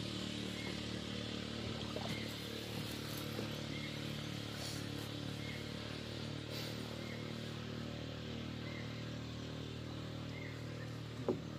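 A steady low engine drone runs throughout, with a short high chirp repeating about once a second and a single sharp click near the end.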